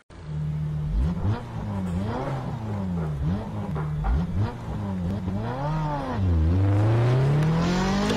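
A car squeezing its front bumper against another car's bumper, making a pitched sound that slides up and down about once a second, then rises steadily near the end.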